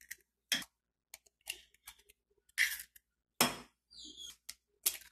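Eggs being cracked and opened into a metal pan one at a time: a string of short, sharp cracks and taps, the loudest about two and a half and three and a half seconds in.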